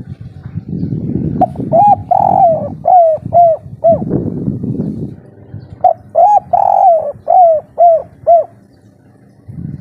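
A spotted dove cooing, in the loud 'kuk 3' style prized by Indonesian keepers. It gives two phrases, about a second and a half and six seconds in, each a run of short clear notes with one longer drawn note in the middle. A low rumble runs under and between the phrases.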